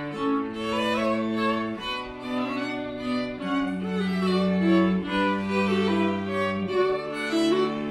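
String quartet playing: a cello bows long held low notes beneath a violin melody.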